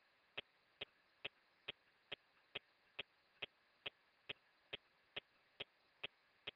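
Faint, regular ticking, a little over two clicks a second, over a low hiss on the launch range's communications audio.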